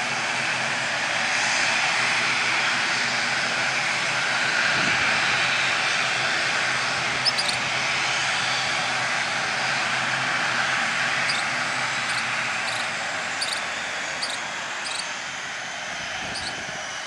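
ATR 72-600 turboprop airliner's twin Pratt & Whitney PW127 engines and propellers running at taxi power, a steady noise with a faint hum under it that gets quieter over the last few seconds.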